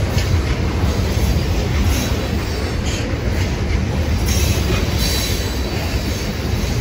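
Loaded railroad tank cars of a freight train rolling past close by: a steady low rumble of steel wheels on rail, with a wheel clack about once a second as trucks cross rail joints.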